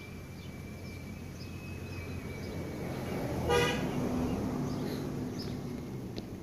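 A car passes with a single short toot of its horn about halfway through. Its road noise builds as it approaches and fades as it goes.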